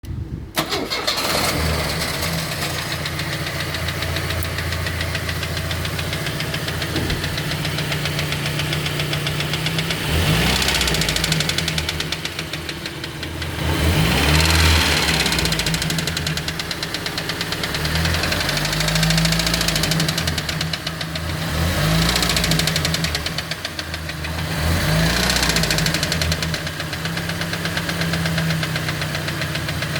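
ZMZ-40522 inline-four petrol engine running with a rapid metallic knock from a broken piston pin. The revs are blipped up and back down about five times.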